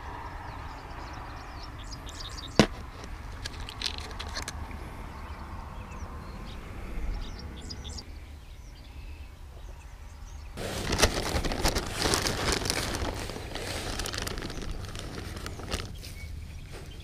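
Hands handling fishing tackle and bait, with a sharp click about two and a half seconds in. From about eleven seconds in, a plastic zip-top bag crinkles and rustles while a hand squeezes the crumbly pack bait inside it.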